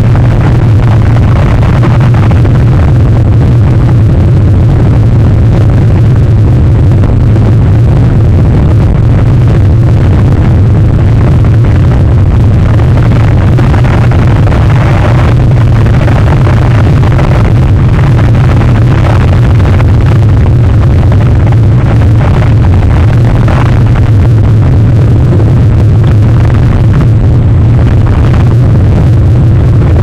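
Strong wind rumbling steadily against an outdoor webcam's microphone in a rainstorm: loud and low, with a rough hiss over it.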